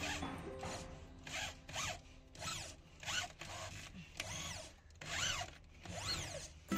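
Electric hand drill boring into a wooden block, run in a series of short trigger pulses. Each pulse is a whine that rises as the drill spins up and falls as it slows.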